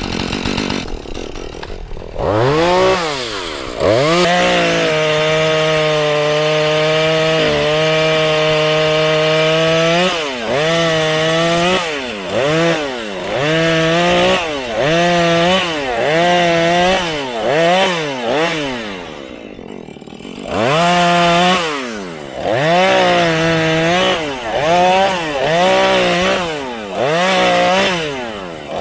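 Husqvarna 435 two-stroke chainsaw at full throttle for about six seconds, then revved in short bursts about once a second as it works through wood. About two-thirds of the way through it drops briefly to idle before revving up again.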